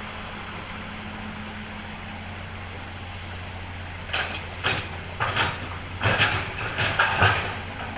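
Komatsu excavator's diesel engine running steadily. About halfway in, a run of five or six loud, irregular clattering bangs sounds as soil and rock are loaded into a dump truck's steel bed.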